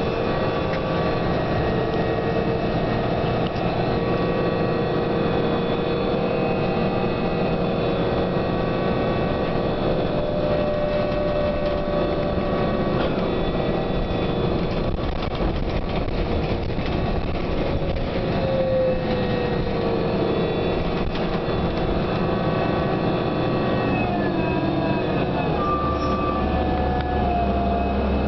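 New Flyer DE42LFA diesel-electric hybrid bus heard from aboard while running, its drivetrain giving several steady whining tones that glide in pitch: one falls about two-thirds of the way through and others rise near the end, as a low hum grows stronger. This unusual whine is the bus's distinctive sound, of a cause the rider does not know.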